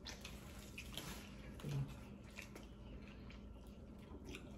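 Faint, wet biting and chewing of a sub sandwich, with scattered small clicks and squishes, and a brief low hum about a third of the way in.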